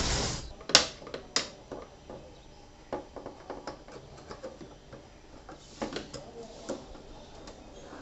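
Screwdriver turning the bottom-roller adjustment screw of an aluminium sliding door: two sharp clicks near the start, then small scattered ticks and a brief metal scrape. The screw is being tightened to raise the roller so the door can slide instead of dragging.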